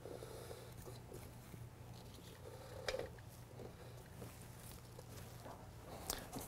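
Faint handling sounds from a model locomotive being settled on a display track by hand: a few light clicks, with one sharper knock about three seconds in, over a steady low hum.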